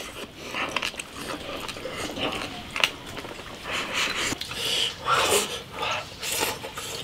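Close-up eating sounds: a man chewing and slurping mouthfuls of rice and stewed beef tendon, with heavy breaths and a few light clicks of chopsticks against the bowl.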